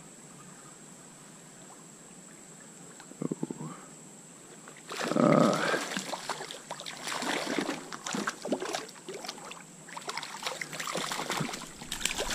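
Water splashing and sloshing with scattered clicks and rustles of handling. It is quiet for the first few seconds and becomes busy and louder about five seconds in.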